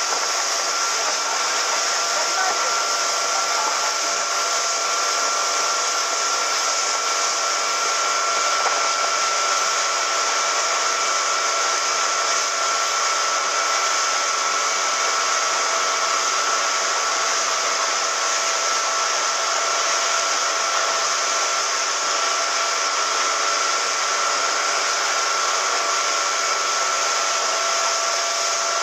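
Small motorboat running at speed: the engine holds a steady whine over a dense rush of wind and churning wake water.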